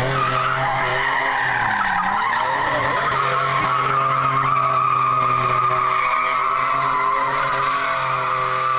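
Pickup truck doing donuts: the engine is held at steady high revs while the tyres squeal continuously, spinning and sliding on the pavement.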